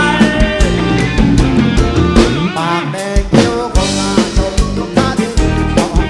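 Background music: a Thai song with a steady drum-kit beat, bass, guitar and a singing voice.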